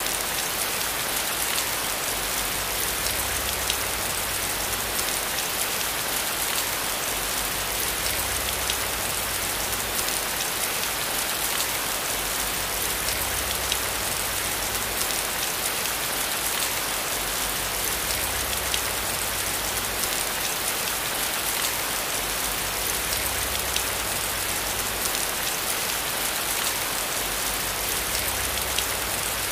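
Steady hiss of falling water with a dense patter of fine drops, like rain on a water surface.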